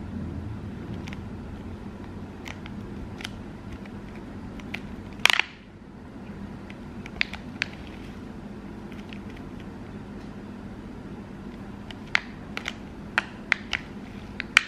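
Plastic knife clicking and scraping against a thin clear plastic tray while cutting through a mooncake, in scattered light clicks that cluster near the end. About five seconds in comes one louder crackle of the plastic. A steady low hum runs underneath.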